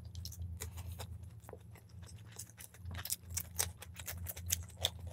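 Close-up eating sounds of people eating chicken biryani by hand: scattered soft clicks of chewing, lip smacking and fingers working the rice, busier in the second half, over a steady low hum.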